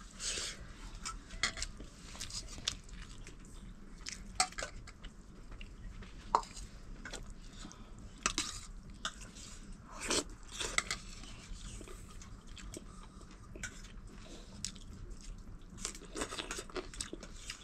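Someone eating a meal of rice and dal: chewing, with scattered light clicks and clinks of a plate.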